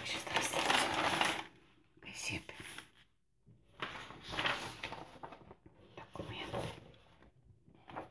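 Soft whispering in short breathy phrases, mixed with the rustle and flap of paper sheets and newspaper flyers being leafed through and lifted, in four bursts with short pauses between.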